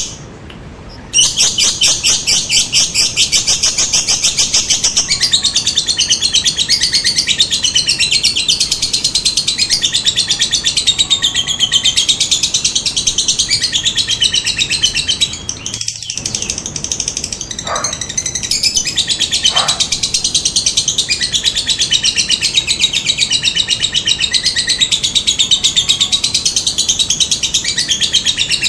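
Lovebird giving a long, very rapid, high-pitched chattering trill, the prolonged 'ngekek' call, starting about a second in and running on almost without a break. A short gap a little past the middle is followed by two brief lower chirps before the trill resumes.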